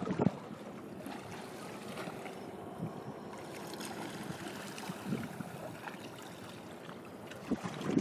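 Steady wind and water noise, with a brief gust buffeting the microphone right at the start.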